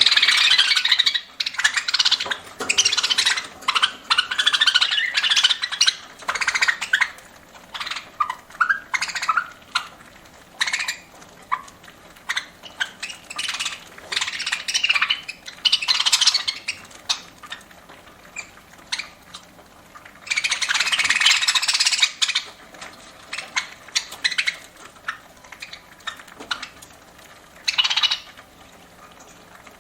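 Pet budgerigars chirping and chattering in bursts, dense in the first half, then a long burst a little past two-thirds in and a short one near the end, with quieter stretches between.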